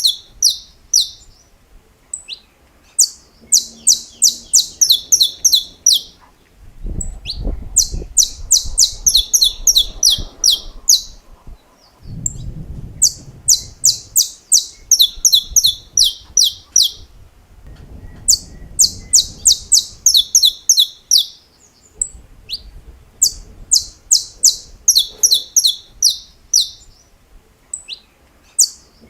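Saffron finch (canário-da-terra) singing its 'estalo' song: repeated phrases of sharp, high clicking notes, about five a second, each phrase two to three seconds long with short pauses between.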